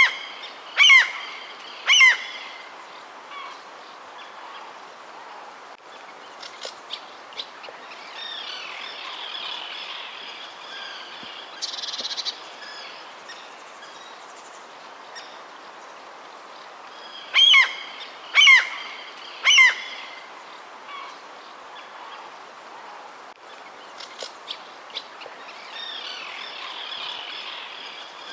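Birds calling: one bird gives three loud calls about a second apart near the start and again about 17 seconds in, with softer chirps and twittering between, over a steady background hiss.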